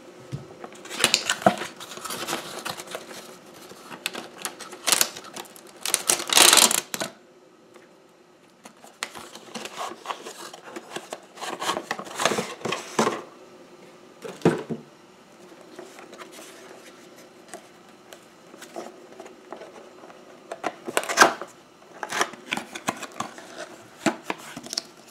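GoPro camera box being opened by hand: cardboard and plastic packaging rustling, clicking and scraping in irregular bursts, with a longer, louder scraping rasp about six seconds in.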